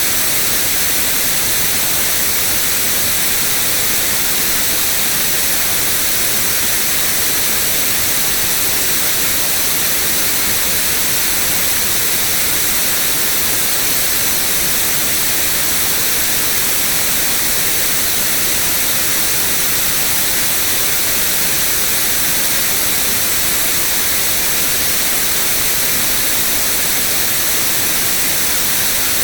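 Steady white noise: an even, unchanging hiss, brightest in the treble, with no breaks or events.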